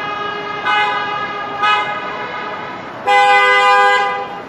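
Car horns honking in street traffic: a horn held on one steady note, two short toots about a second apart, then a louder blast lasting about a second near the end.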